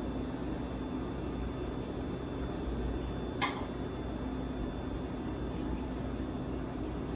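A metal spoon clinks against a bowl several times as soup is eaten, with the sharpest clink about three and a half seconds in. A steady hum continues underneath.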